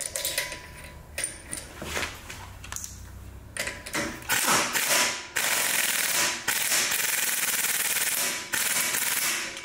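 Impact wrench hammering the flywheel nut of an Onan engine tight, in several runs over about five seconds. Before it, small metal clinks as the washers and nut are fitted by hand.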